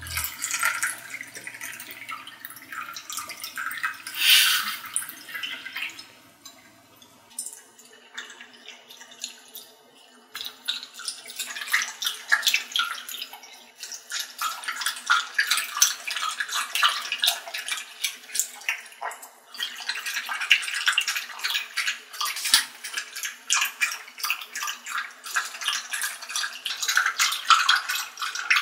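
Beer poured from a glass bottle into a small metal pot, splashing for several seconds. After a short lull, Italian greyhounds lap it up with rapid wet licks that go on in a quick, steady patter.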